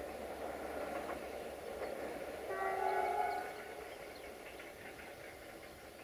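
Diesel locomotive 65-1300-6 sounding one multi-tone horn blast about 2.5 s in, lasting about a second and heard from a distance. Under it is the rolling noise of the passenger train pulling away, which fades after the horn.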